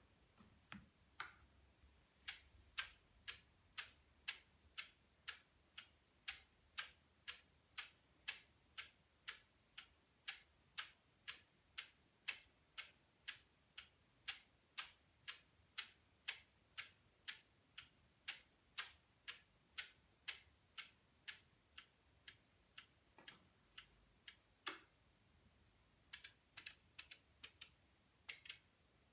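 Relays of a homemade relay computer clicking about twice a second as it steps through a program on a 1 Hz clock, two ticks a second. The clicking stops after about twenty seconds, followed by a couple of single clicks and a quick run of clicks near the end from the control panel's switches.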